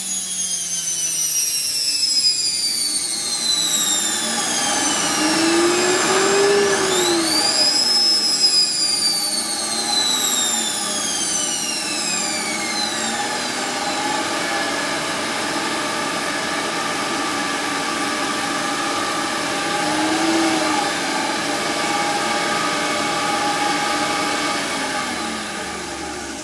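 A 220 V universal motor running off the generator's output, whining with a pitch that slides down, rises again about eight seconds in, then falls away. A steadier running note sits beneath it. Its speed wavers, which the owner puts down mostly to belt slippage.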